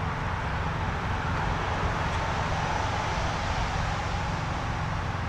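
Steady idle of a semi truck's diesel engine, a low even pulsing under a constant hiss.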